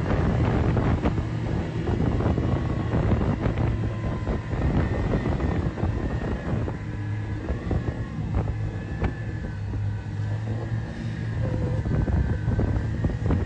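Outboard motors on a work barge running hard and churning white water, the barge stuck on a reef. Gusts of wind buffet the microphone throughout.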